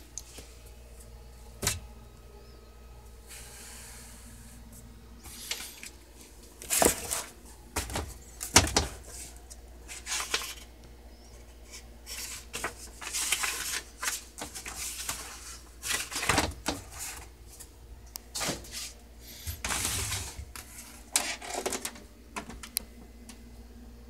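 Irregular handling noise: bursts of rustling and sharp plastic clicks and knocks, fitful through the middle, over a steady low hum. It fits the word processor's paper instruction manual being leafed through and the plastic machine being handled.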